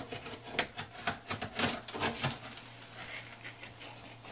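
Large cardboard shipping box being torn open: a quick run of sharp crackles and rips from the tape and flaps over about two seconds, then quieter crackling.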